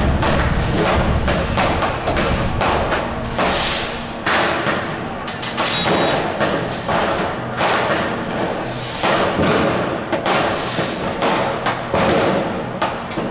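New Year's Eve fireworks: a dense, irregular barrage of firecracker and rocket bangs, several a second and overlapping, each with a short ringing tail.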